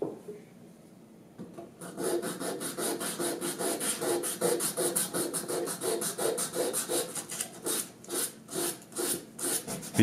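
Hand-sanding a carved tupelo wood bird: an abrasive rubbed back and forth over the wood in quick, even strokes, about three a second, starting about two seconds in.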